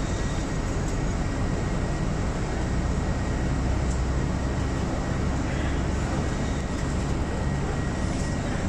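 Steady engine and road rumble heard from inside a moving airport apron shuttle bus, with a thin, steady high whine over it.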